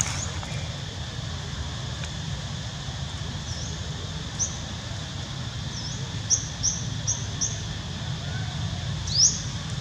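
A string of short, high chirps: scattered single ones early, a quick run of four about six to seven and a half seconds in, and a longer one sweeping upward near the end, over a steady low rumble.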